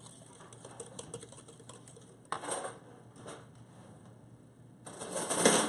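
Light clicking and tapping as a Danish whisk stirs batter in a mixing bowl. A short scraping rustle comes about two seconds in, and a louder one near the end.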